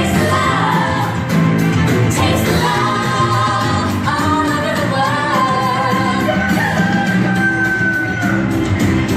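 Upbeat pop-style song with sung vocals and a steady beat, played through the ride's speakers.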